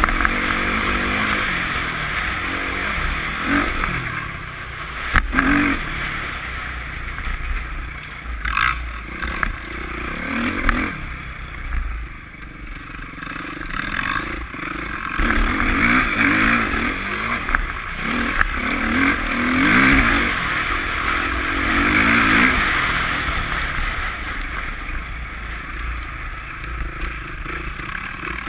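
Motocross bike engine running under load, its revs rising and falling as it is ridden over snow, with two sharp knocks from the bike or mount, about five and nine seconds in.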